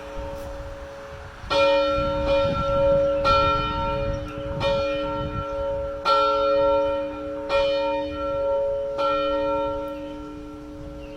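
A single church bell being rung, struck about six times at an even pace of roughly one stroke every second and a half, each stroke ringing on with a long hum into the next. A low rumble runs underneath.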